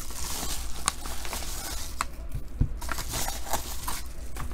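Yellow kraft paper padded mailer being handled and turned over in the hands, its paper crinkling and rustling with a few sharp crackles.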